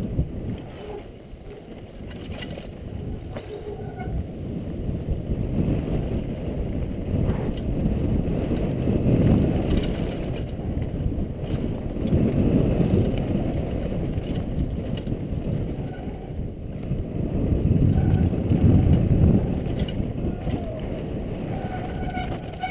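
Downhill mountain bike rattling over a rocky dirt trail, picked up by a helmet-mounted GoPro: tyres crunching on stones and loose gravel, the bike clattering, under a low rushing noise that swells and fades several times.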